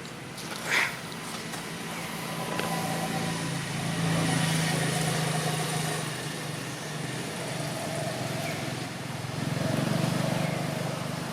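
A motor vehicle's engine running steadily, swelling louder about four seconds in and again near the end as if passing. A single short, sharp sound comes just under a second in.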